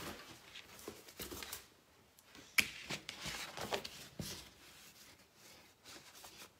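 Paper and boards being handled and moved: scattered rustles with light knocks and clicks, the sharpest about two and a half seconds in, growing quieter after about four seconds.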